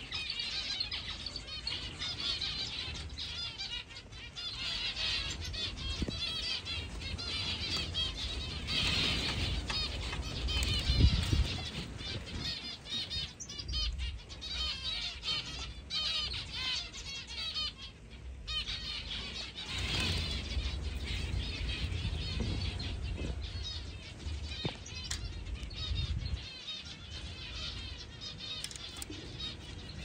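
A large aviary flock of finches chirping and twittering continuously, many birds at once, with low rumbling bursts now and then.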